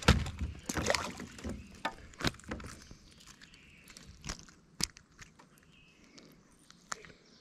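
Handling noise from a small bluegill being grabbed and unhooked: a burst of knocks and rustles at the start, then scattered sharp clicks and taps as the fish and lure are handled.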